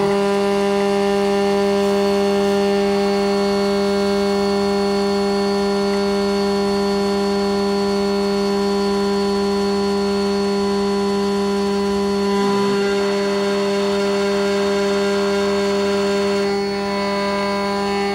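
CNC router spindle milling an aluminium plate with a small end mill: a steady pitched whine over the hiss and chatter of the cut.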